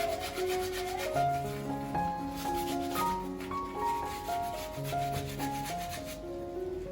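Rapid, repeated scrubbing strokes of cleaning by hand, rubbing back and forth, over soft melodic background music. The scrubbing stops about six seconds in.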